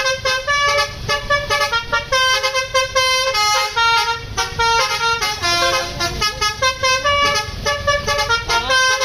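A tour bus's Basuri V3 telolet multi-tone horn plays a quick melody, its notes stepping up and down one after another without a break, over a low rumble from the bus.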